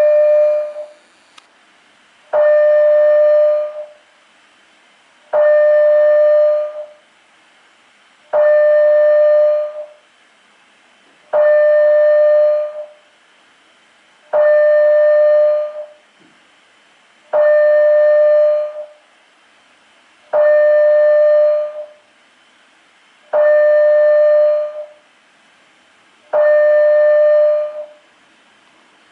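A building fire alarm sounding one steady tone about a second and a half long, repeated about every three seconds. Each tone starts sharply and trails off. The slow beat of about twenty tones a minute fits the alert-stage signal of a Canadian two-stage high-rise alarm system.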